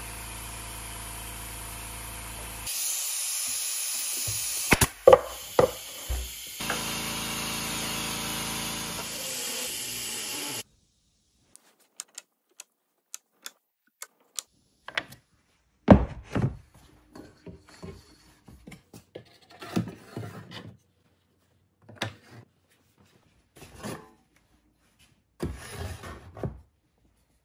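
A steady hum that changes at about three and seven seconds in, with a few sharp knocks, cuts off suddenly about ten seconds in. Then come scattered knocks and clicks of wooden blocks being handled and set in place, and near the end a steel handsaw blade sliding into the slot of a wooden saw rack.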